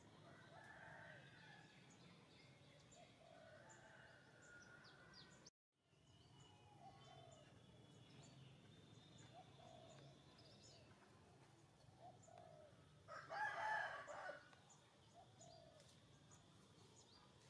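Faint outdoor birdsong with a rooster crowing once, about thirteen seconds in, the loudest sound. The sound drops out for a moment about five and a half seconds in.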